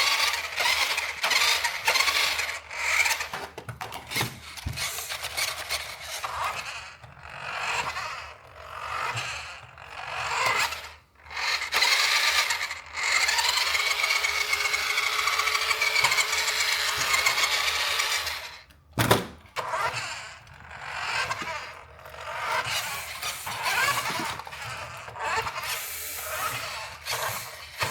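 Toy RC car running in uneven start-stop bursts, a tinny, drill-like whir whose pitch rises and falls in a longer stretch around the middle.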